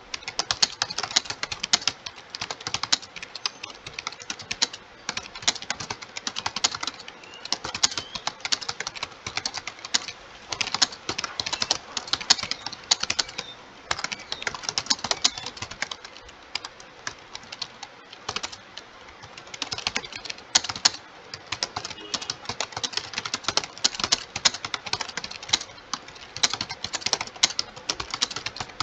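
Fast, continuous typing on a computer keyboard, rapid key clicks with brief pauses now and then, as in a timed Hindi typing speed test.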